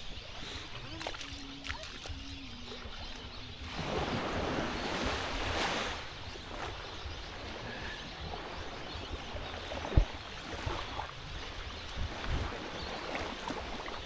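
Small waves washing onto the shore, swelling once about four seconds in, over a steady low wind rumble on the microphone, with a single sharp thump about ten seconds in.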